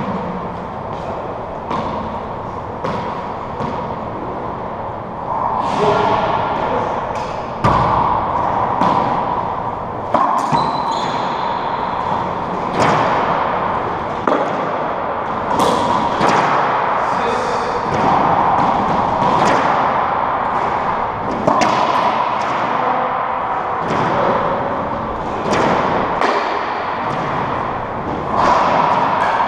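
Racquetball rally: the ball cracking off racquets and slapping the walls and wooden floor, sharp irregular hits a second or two apart, each ringing in the enclosed court.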